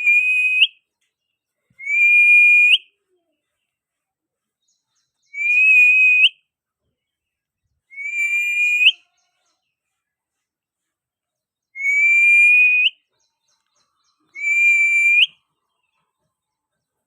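Parrot whistling a repeated call six times: each whistle is held at a steady pitch for about a second and ends in a quick upward flick, with pauses of one to three seconds between calls.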